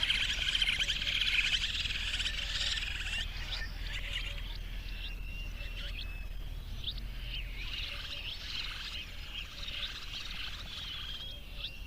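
A chorus of small birds chirping, many short high calls overlapping, densest in the first three seconds.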